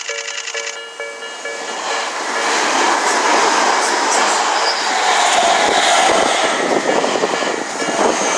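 Railway level-crossing warning bell dinging at about two and a half strikes a second as an electric Tobu Tojo Line train arrives at the crossing. The rush of the passing train builds from about a second and a half in, drowns out the bell, and stays loud with thumps from the wheels over the rail joints.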